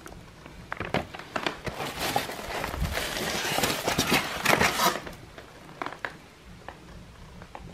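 Old paper catalogues and loose documents rustling and crinkling as they are handled and leafed through, with scattered clicks. The rustling is busiest from about one to five seconds in.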